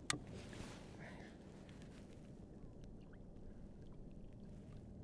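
A single sharp click just after the start, then a low, steady wash of water against a drifting sea kayak with a few faint ticks.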